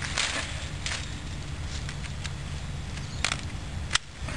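Hand secateurs snipping through dormant grapevine canes: a few short, sharp clicks, one about a second in and two near the end, with some rustling of the canes as they are handled.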